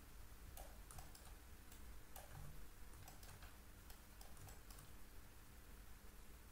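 Near silence with a few faint, scattered clicks of a computer keyboard and mouse, its wheel and buttons, against room tone.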